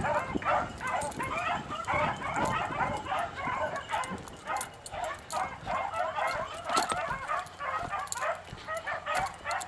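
Pack of beagles baying, many voices overlapping without a break: the hounds giving tongue as they run a rabbit's scent trail.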